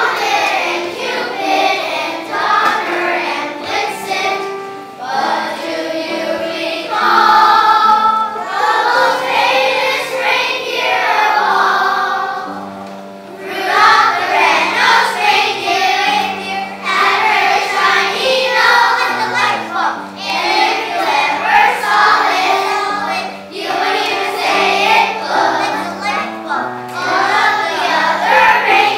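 Children's choir singing a Christmas song, with a brief lull about halfway through before the singing comes back in.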